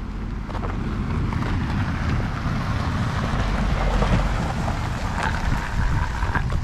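A vehicle approaching and drawing near, its engine and tyre noise building to a peak about four seconds in, with wind buffeting the microphone.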